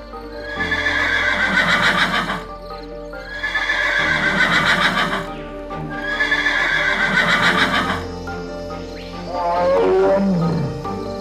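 Three long, quavering animal calls, each about two seconds, followed near the end by a call that glides down in pitch, all over background music.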